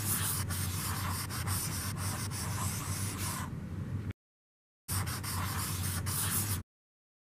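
Red felt-tip marker scratching across lined notebook paper in quick strokes, writing a name in cursive. It breaks off for under a second about four seconds in, resumes for nearly two seconds, then cuts off suddenly.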